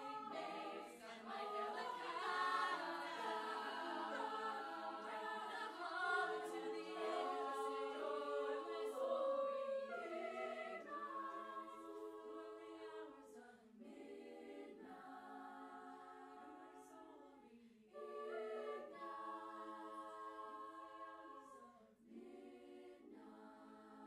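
A cappella vocal group singing in close harmony with no instruments. It is fuller and louder for the first ten seconds, then quieter sustained chords are each held a few seconds with short breaks between them as the song closes.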